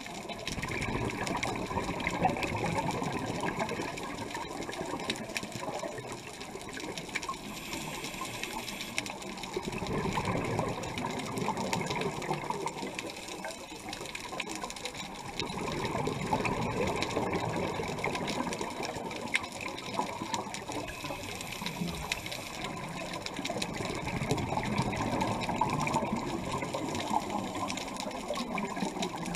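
Scuba divers' exhaled air bubbling out of their regulators underwater, a bubbling rush that swells and fades every several seconds with each breath out.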